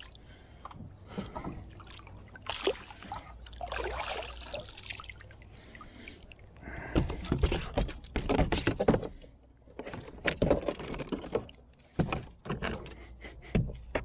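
An arrowed fish being hauled in on a bowfishing line, splashing at first. From about halfway through come a run of irregular knocks, scrapes and rattles against the hard plastic kayak hull as the fish thrashes on the arrow on the deck.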